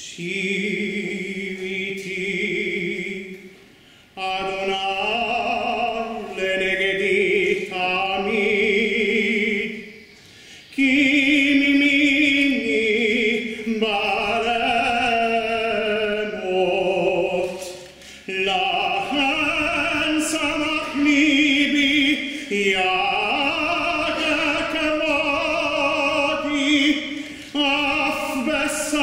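A cantor chants a Jewish liturgical prayer solo and unaccompanied. His male voice holds long notes with vibrato, phrase after phrase, with short pauses between the phrases.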